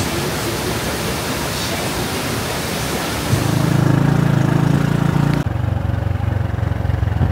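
Steady rushing of a waterfall. About three seconds in, a loud low drone comes in over it. After an abrupt cut a little past five seconds, the rushing drops away and a lower drone carries on.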